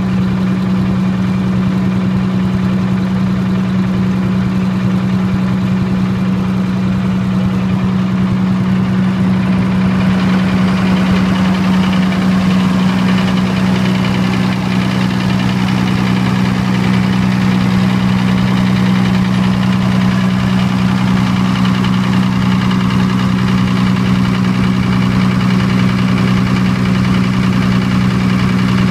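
Diesel generator engine running steadily, a constant low hum that brightens slightly about ten seconds in.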